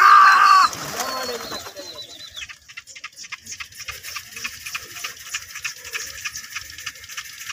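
A flock of pigeons being driven up into flight. It opens with a loud, shrill, wavering human call that dies away by about two seconds in, followed by a scatter of quick sharp flaps and clicks from the birds' wings.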